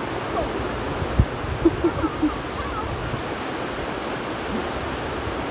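Steady wash of ocean surf with wind on the microphone. A soft low thump comes about a second in, followed by a few short faint chirps.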